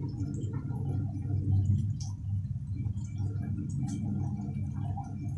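Tofu slabs frying in hot oil in a wok: a steady low bubbling with scattered small crackles and pops.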